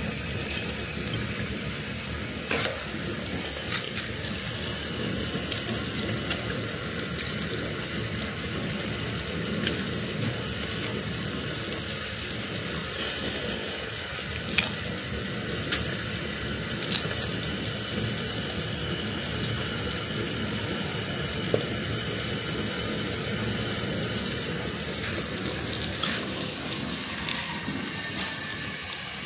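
Water running or splashing steadily, as in washing food in a basin, with a few sharp knocks scattered through it.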